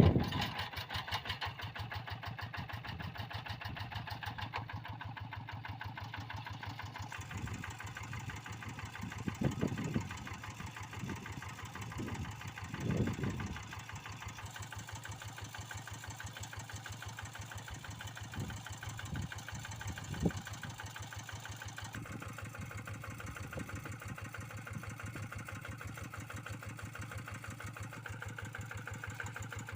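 Kubota RD85DI single-cylinder diesel of a Quick G1000 two-wheel hand tractor running steadily with a fast, even chugging, with a few louder low thumps around ten, thirteen and twenty seconds in.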